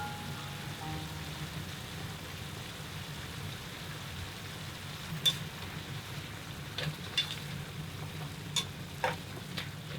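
Food sizzling steadily in an oiled frying pan. Several sharp clicks of a utensil against the pan come from about five seconds in.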